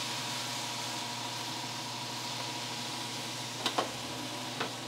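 Vegetables, fishballs and quail eggs sizzling gently in a little broth in a stainless steel sauté pan on a gas range: a steady hiss with a low hum beneath. Two light clicks come near the end.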